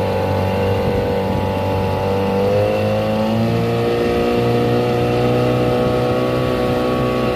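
Outboard motor of a small fishing boat running under way. The engine speed rises about two and a half seconds in, then holds steady.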